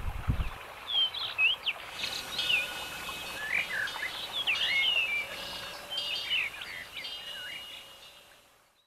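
Small birds chirping: many short, quick calls overlapping, over a light steady hiss that comes in about two seconds in, all fading out near the end.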